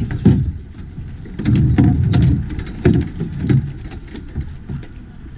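Wind buffeting a GoPro HERO7's microphone: irregular low rumbling gusts with scattered crackles, strongest around two seconds in.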